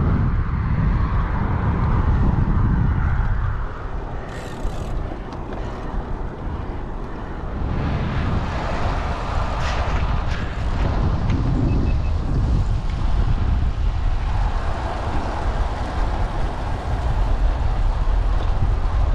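Wind buffeting a bike-mounted action camera's microphone while cycling, a heavy steady rumble with road noise underneath. It eases off for a few seconds early on and then comes back.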